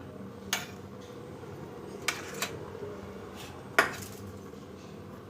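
A metal spoon knocking against a metal kadhai four times, the last knock the loudest, as ginger is stirred into thick jaggery syrup, over a steady low hum.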